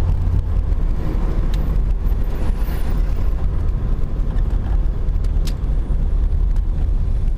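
1993 BMW E36 325is driving, a steady heavy low rumble with a few faint clicks. The rear differential has a broken mounting bolt, so it lifts and rubs under way.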